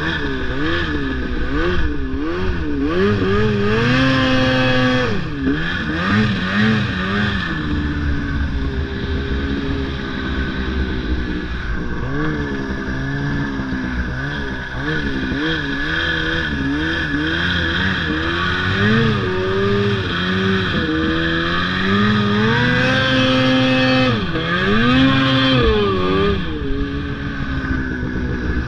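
Snowmobile engine revving up and down over and over as the throttle is opened and eased, heard from the rider's seat while riding.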